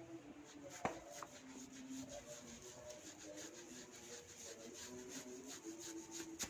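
Hands rubbing and tugging at hair during a head massage: a faint, rhythmic rustle with two sharp snaps, one about a second in and one near the end.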